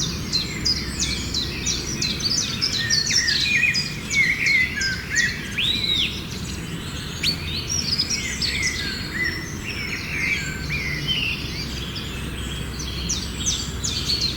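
Songbirds chirping and calling, many quick overlapping chirps and short whistles, over a steady low background rumble.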